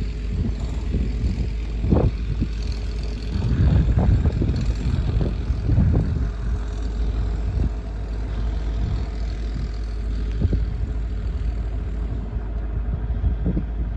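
Steady low outdoor rumble, with brief louder surges about two, four and six seconds in.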